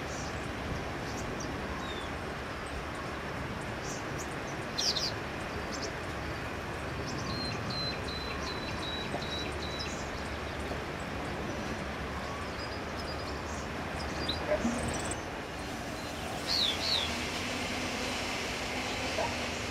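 Small birds giving short sharp chirps a few times over a steady background rumble: a loud double chirp about five seconds in, a thin even twittering series a few seconds later, and another couple of sharp chirps near the end.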